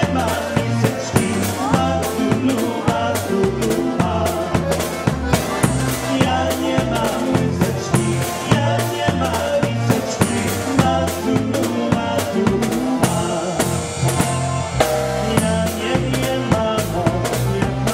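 Live polka band playing a polka, with the drum kit keeping a steady beat under an alternating bass line and melody.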